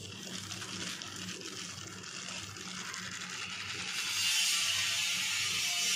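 Gram flour being sifted through a steel mesh sieve: a dry, rustling hiss of flour on the wire mesh that grows louder about four seconds in.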